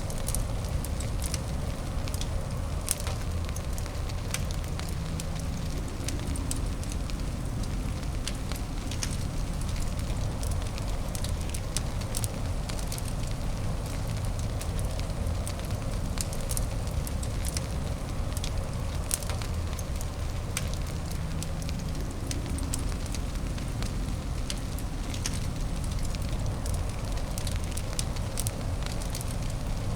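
Wood fire crackling in a fireplace: frequent sharp pops and snaps scattered over a steady low rumble.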